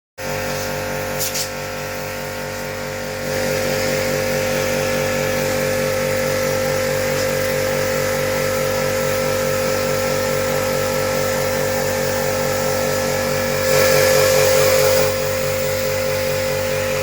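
Electric pressure-washer pump running, used for washing out an air conditioner: a steady hum with a fast, even pulsing underneath. It gets louder about three seconds in, and a hiss of spraying water rises for a second or so near the end.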